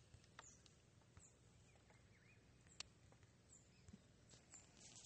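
Near silence: faint background hiss with a few scattered soft clicks, one a little more distinct about three seconds in.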